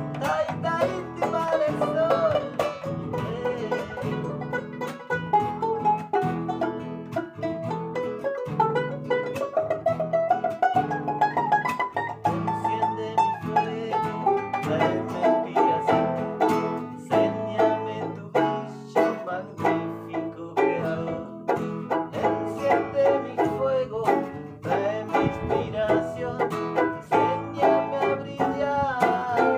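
A small banjo and an acoustic guitar played together in a lively strummed and picked duet.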